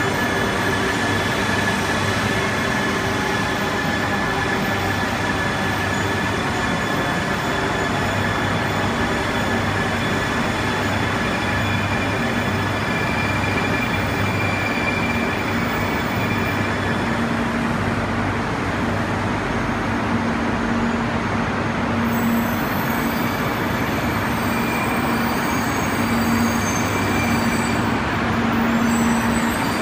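Shinkansen trains running through an underground station: an arriving train's motors whine down in pitch as it slows to a stop, over a steady rumble. A low hum then holds, and from about two-thirds of the way in a second high-speed train adds a high whine as it pulls in on the next track.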